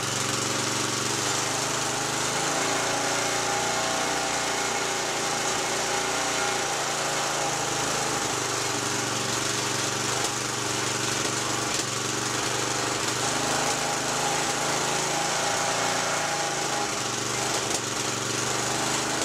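A rototiller's small gasoline engine running steadily, back in running order after a rebuild.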